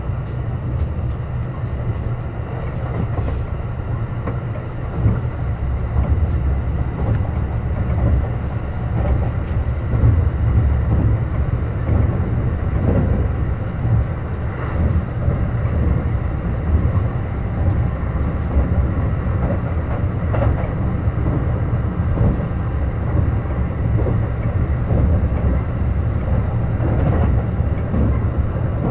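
Kintetsu Urban Liner Plus limited express train running: a steady low rumble of wheels on rail with scattered faint clicks, growing a little louder about five seconds in.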